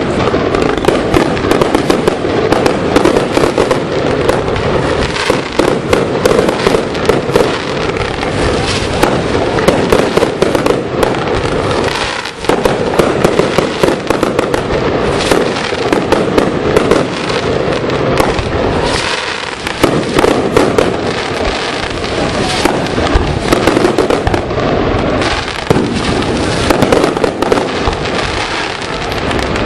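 Fireworks display going off: a rapid, continuous barrage of bangs and crackling, easing briefly twice, about 12 and 19 seconds in.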